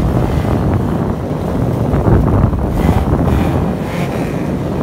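Loud, low wind rumble on the microphone mixed with the running engine and tyres of a Toyota Corolla KE70 wagon driving off-road through tall grass.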